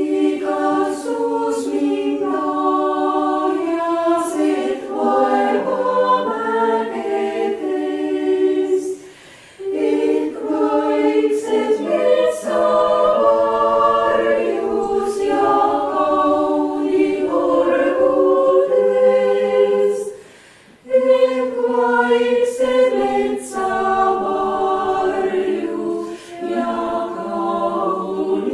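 Chamber choir singing in sustained phrases, with brief breaks between phrases about nine and twenty seconds in.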